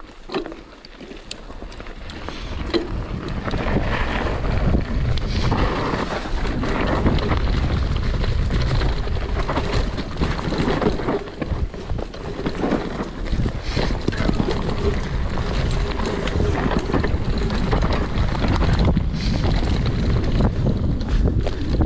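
Mountain bike riding along a trail: rushing wind on the bike-mounted or helmet camera's microphone, with frequent knocks and rattles from the bike over rough ground. It builds over the first few seconds as the bike picks up speed, then stays loud.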